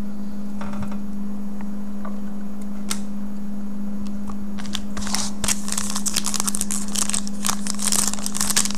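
A steady low hum throughout, then from about halfway in, the crinkling and tearing of a trading card pack's wrapper being ripped open by hand.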